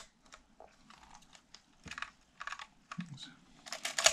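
Irregular mechanical clicks and clacks from a Praktica MTL3 35mm SLR being worked by hand, its shutter and top-plate controls operated, with the loudest clack near the end. The camera body and shutter are working properly; the only fault is sticky lens aperture blades.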